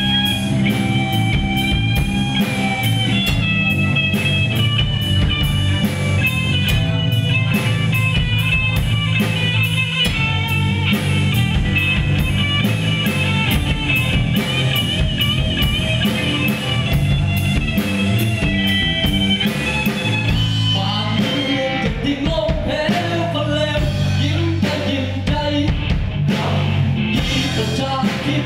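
Live rock band playing: a Stratocaster-style electric guitar carries a melodic lead over drums and bass guitar, and a sung voice joins in over the last several seconds.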